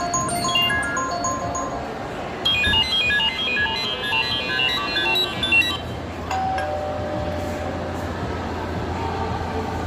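iPhone ringtones playing one after another. First comes a short chiming melody. About two and a half seconds in, a fast run of high tinkling notes follows, and from about six seconds a held tone sounds over a steady low hum.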